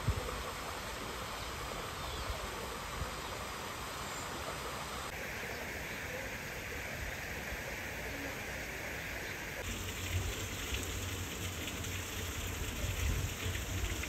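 Steady rush and trickle of water from a small waterfall and stream in a pond, with an even hiss that changes character abruptly twice.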